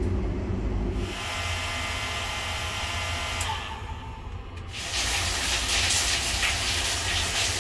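A small hair dryer motor whining over a rush of air. After a short lull, a loud steady hiss of water spraying, the shower room's cleaning rinse.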